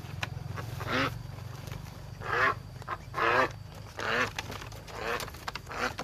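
Ducks quacking, about six loud calls spaced roughly a second apart, over a steady low rumble.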